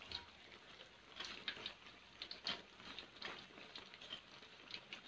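Flour-battered tempeh deep-frying in oil in a wok: faint, irregular crackling and popping of the hot oil.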